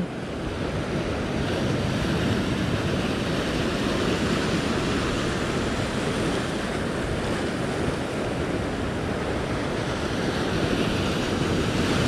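Ocean surf breaking and washing across a flat rock platform, a steady rush of water, with wind buffeting the microphone.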